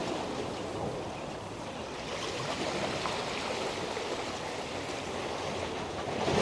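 Sea water washing against the rocks of a breakwater: a steady, even wash of water with no breaks.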